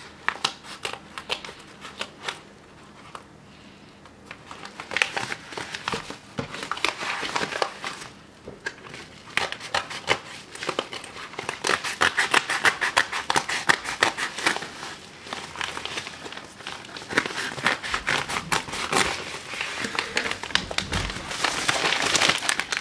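Plastic and cardboard packaging being unpacked by hand: steady crinkling and rustling with small clicks and snaps, sparse at first and busier from about five seconds in.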